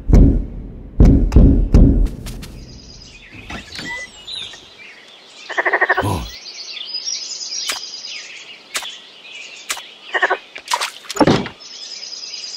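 Several heavy knocks on a wooden gate in the first two seconds, then birds chirping steadily. About six seconds in the gate creaks open, and a couple of shorter creaks or knocks follow near the end.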